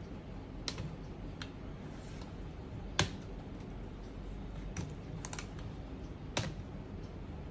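Scattered light clicks and taps of small plastic laptop parts being handled during disassembly, about seven in all with the loudest about three seconds in, over a steady low background noise.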